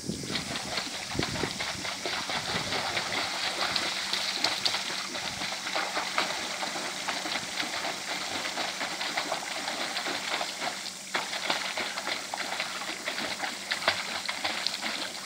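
Continuous splashing from a child's flutter kick while swimming on a kickboard, legs churning the water behind him, with a brief lull about two-thirds of the way through.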